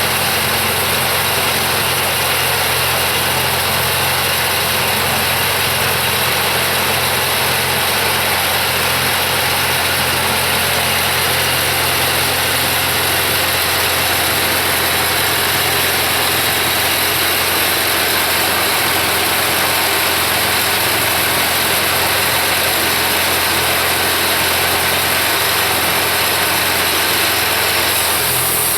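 Kubota V1305 four-cylinder diesel engine running steadily on a LogMaster LM2 sawmill.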